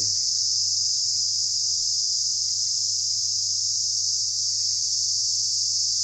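Steady, high-pitched chorus of insects, unbroken throughout.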